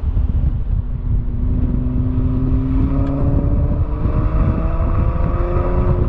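Car engine accelerating steadily, its pitch rising slowly over several seconds, over heavy low wind and road rumble on the microphone.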